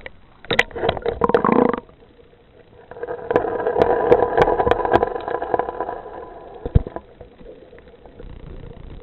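An engine running with a steady hum for about four seconds in the middle, muffled, with scattered clicks and knocks before and during it.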